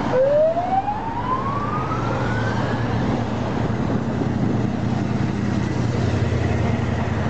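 Column of military trucks and armoured vehicles driving past, with steady heavy engine and road noise. One whine rises steadily in pitch over the first three seconds.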